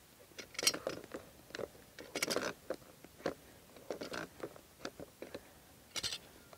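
Multi-grips gripping and turning the plastic nut of a Philmac EasyLOK compression fitting to loosen it: irregular clicks, creaks and scrapes of the plier jaws on the plastic, in several short bursts.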